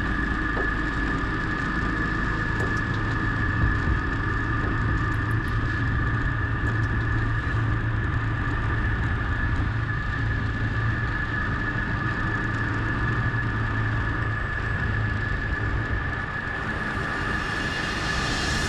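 Motorbike engine running steadily with road noise while riding, a constant low drone with a steady whine above it.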